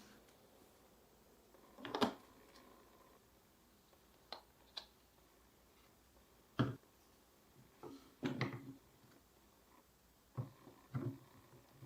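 Marbles clacking against the pieces of a marble run track: about eight light, separate knocks spaced a second or two apart, with a quick cluster of clatters a little past the middle.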